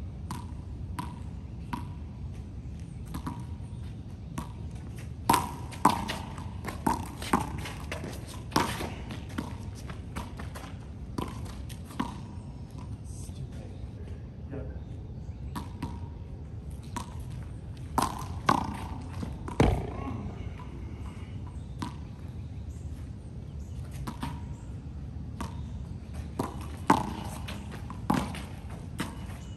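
Small rubber handball being slapped by hand, bouncing on concrete and smacking a cinder-block wall during rallies: irregular sharp smacks, in quick runs of several hits a few seconds apart.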